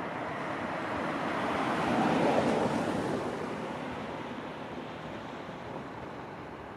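Toyama Chiho Railway 14760 series electric train running away along the track, a rolling wheel-and-rail noise that swells about two seconds in and then slowly fades.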